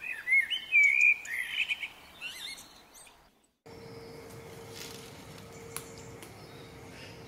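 A songbird chirping and warbling in quick, high phrases for the first three seconds. After a sudden break, a steady, quieter outdoor background with a constant low hum, and a single faint tick a few seconds later.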